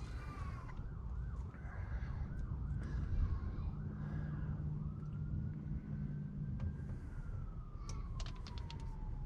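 Emergency vehicle siren: a fast, warbling yelp that changes at about five seconds to a slow wail, rising and then falling. A low rumble runs underneath.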